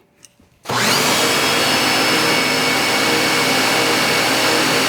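Ryobi electric pressure washer motors cutting in abruptly under a second in, then running steadily under load with the hiss of the spray.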